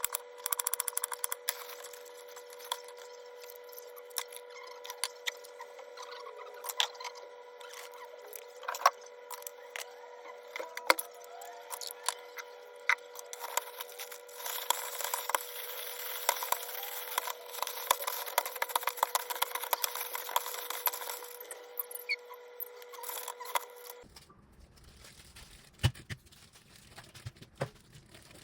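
Kitchen food-prep handling sounds: repeated clicks, taps and scraping over a steady hum, with a spell of rushing hiss in the middle. Near the end the hum stops abruptly and a few quieter knocks follow.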